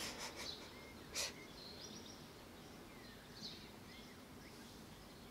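Faint outdoor ambience with a few soft, short bird chirps. A few light ticks at the very start and a sharp click about a second in.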